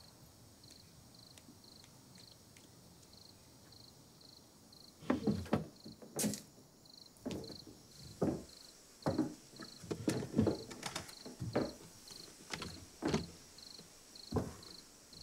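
Cricket chirping steadily, a high pulse repeating about two or three times a second, and from about five seconds in a run of irregular knocks and creaks from footsteps and movement on wooden floorboards.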